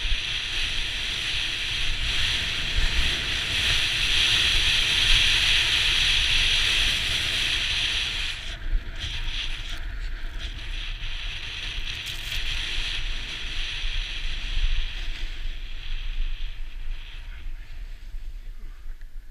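Snowboard sliding and carving down groomed snow: a steady scraping hiss that eases about eight seconds in, over low wind rumble on the microphone.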